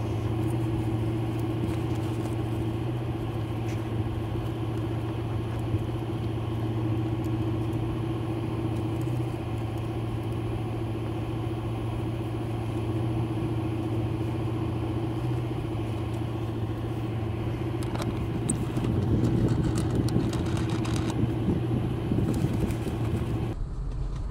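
Ford Mustang running with a steady low drone that holds one pitch throughout, a little louder for a few seconds toward the end.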